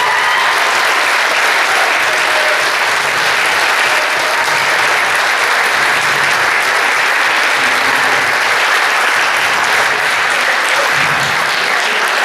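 Theater audience applauding loudly and steadily.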